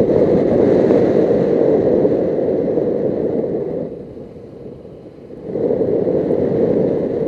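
Wind rushing over a microphone inside a motorcycle helmet, with a Suzuki GS500E parallel-twin running beneath it as the bike is ridden. The rush drops for about a second and a half a little after the middle, then comes back up.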